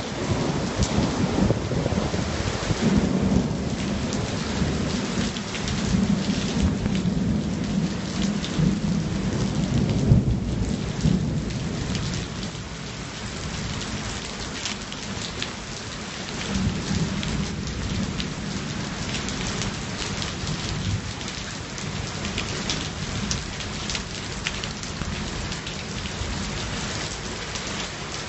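Steady heavy rain with many close drops crackling. Thunder rumbles low under it, swelling over the first twelve seconds and loudest about ten seconds in, then rolls again more weakly around sixteen to twenty seconds.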